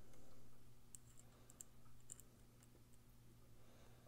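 Near silence with a few faint, scattered small metal clicks of a folding knife's parts being handled and seated by hand as its stop pin and liner are fitted back at the pivot, over a low steady hum.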